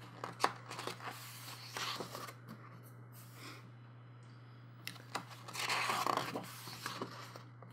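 Thick paper pages of a coloring book being turned and handled: soft rustles and light ticks, with a louder page rustle about six seconds in.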